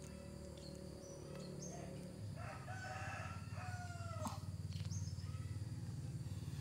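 A rooster crows once, faintly, about two and a half seconds in, the call lasting about two seconds with its last note falling. Underneath, a low steady engine hum comes up about two seconds in.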